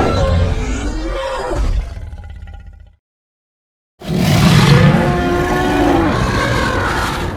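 Two dinosaur roar sound effects. The first trails off and cuts to silence about three seconds in. A second later another roar starts abruptly, its pitch gliding, and slowly fades.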